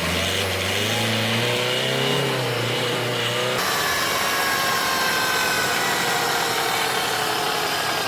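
Manual transmission whining as the car drives, from worn needle bearings inside the gearbox gears. The whine rises in pitch at first, then a second recording about three and a half seconds in carries a higher whine that slowly falls.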